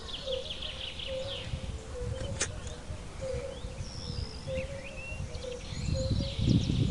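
Wild birds chirping and trilling over a low, steady outdoor rumble, with a faint repeating low note underneath. A sharp click comes about two and a half seconds in, and a louder low rustling begins near the end.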